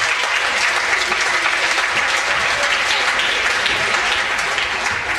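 Crowd applauding: a dense patter of many hands clapping, beginning to die away near the end.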